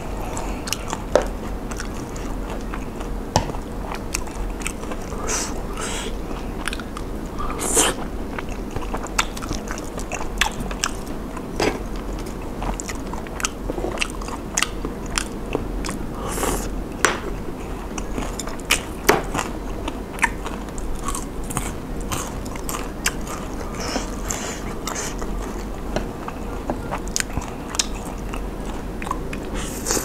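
Close-up chewing and biting of food, with many sharp, crisp crunches scattered throughout.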